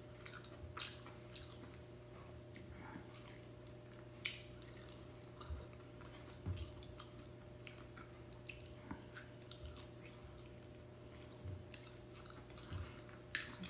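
Quiet, wet mouth sounds of someone chewing soft, rich durian flesh, with scattered lip smacks and small clicks over a faint steady hum.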